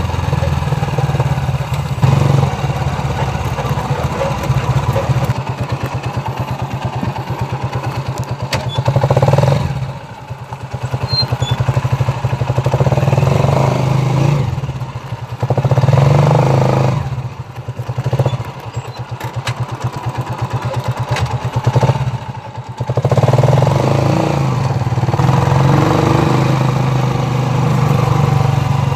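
Motorcycle engine of a sidecar tricycle running under way. The engine sound drops and picks up again several times, most deeply about ten seconds in and briefly around fifteen, eighteen and twenty-two seconds.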